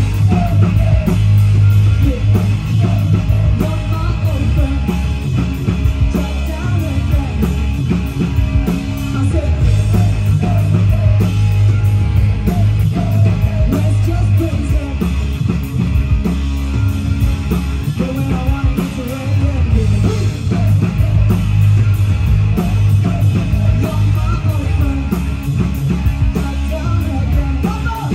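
Live punk rock band playing loud, with electric guitars and drums and a woman singing over them.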